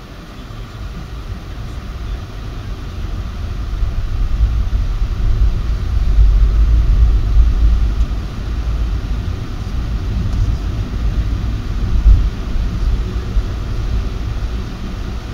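Car engine and road noise heard inside the cabin, a low rumble that builds over the first few seconds as the car pulls away from the lights and picks up speed. One brief thump comes about twelve seconds in.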